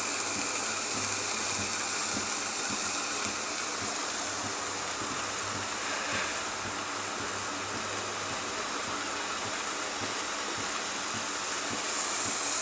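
Milk heating in a pan on the stove, a steady, even hiss.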